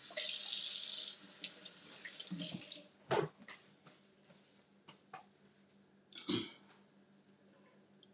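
Kitchen tap running while hands are washed under it, for about three seconds, then shut off. A few faint clicks and a brief knock follow.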